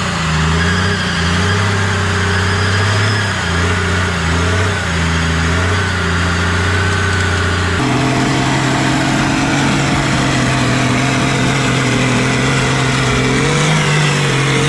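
Off-road 4x4 engine running loudly, its revs rising and falling for several seconds. About eight seconds in, the pitch jumps suddenly to a steadier, higher note.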